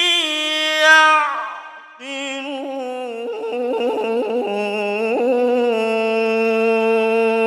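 Male Quran reciter (qari) chanting in melodic tajwid style, drawing out the words "liqawmin ... ya'qilun". A held note fades out about a second and a half in; after a short pause for breath a new phrase starts, wavers through ornamented turns and settles into a long, steady held note.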